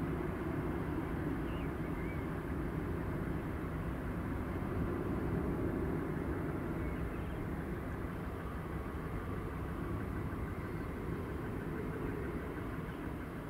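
Boeing 737-800 with CFM56 jet engines on short final approach: a steady low jet rumble that swells about five seconds in and eases slightly near the end, mixed with road traffic.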